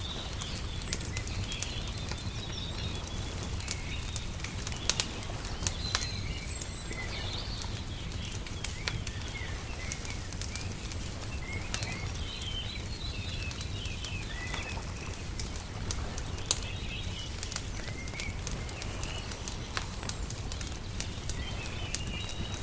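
Layered nature ambience: a wood fire crackling with scattered sharp pops, a few louder about five, six and sixteen seconds in, while small birds chirp over a steady low rumble.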